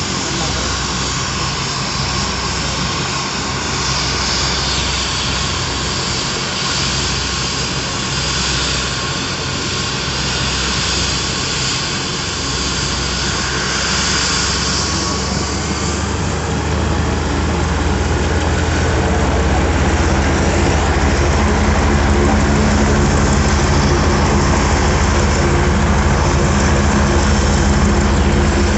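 Light turbine helicopter running on the ground: a steady engine and rotor noise with a high whine. About halfway through, the whine fades and a heavier, louder low drone builds up.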